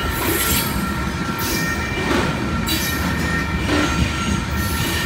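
Freight train's covered hopper cars rolling past close by: steady wheel-on-rail rumble with a rush of sound every second or so as each set of wheels goes by, and a faint thin steady squeal from the wheels.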